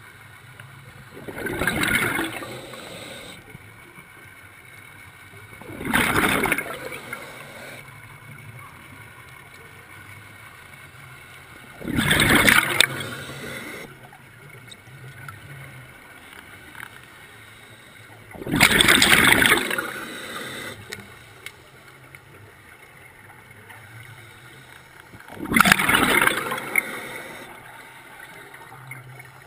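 Scuba diver's regulator underwater: exhaled air bubbles rush out in five bursts, one every six to seven seconds. Each lasts about a second and fades with a bubbling crackle, with quiet between breaths.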